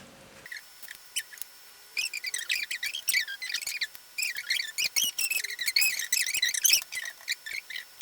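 Small birds chirping and twittering in quick, dense runs of short high notes, starting about half a second in and busiest in the middle.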